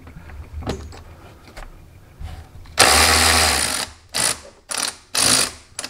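Cordless electric ratchet running in one burst of about a second, then three short bursts, backing out a clutch cover screw.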